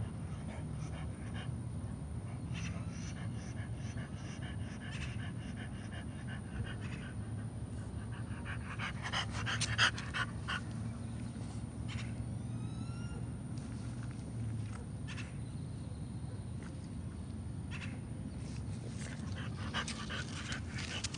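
French bulldog panting close to the microphone.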